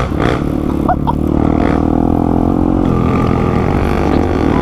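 Single-cylinder trail motorcycle engine running steadily while riding along a muddy dirt track, heard from the rider's own bike.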